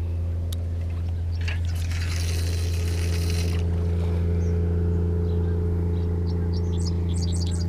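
A steady low machine hum with evenly spaced overtones, holding one pitch. A brief hiss comes about two seconds in.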